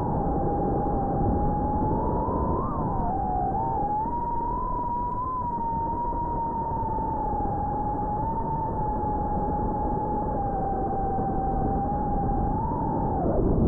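FPV quadcopter's motors whining at a steady high pitch that wavers up and down with throttle, over a rushing noise; the pitch drops sharply near the end.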